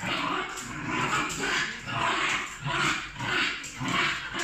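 Dogs play-fighting: repeated short growls and snarls, about two a second.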